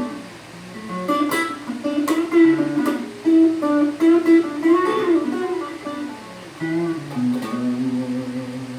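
Squier Telecaster Standard Series electric guitar played with picked single notes and chords, with sharp plucked attacks through most of the passage. Near the end it settles into longer held notes.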